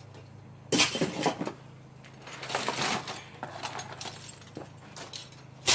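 Steel foothold traps and their chains clinking and clattering as they are handled, with a sharp clatter about a second in, cardboard box flaps rustling, and a sharp knock at the very end.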